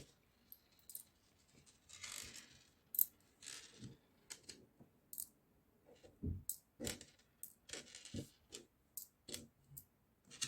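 Small charms and beads being picked off a squishy and handled: scattered light clicks and taps, with a few short rustles.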